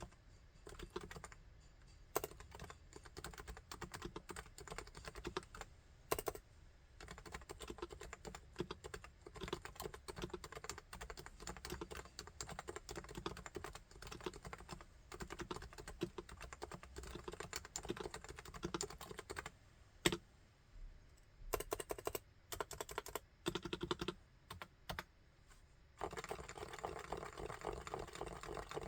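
Typing on a Topre Realforce R3 keyboard's electrostatic capacitive (Topre) switches: a steady run of key strokes with one louder stroke about two-thirds through, a few scattered strokes with short pauses after it, then fast continuous typing near the end.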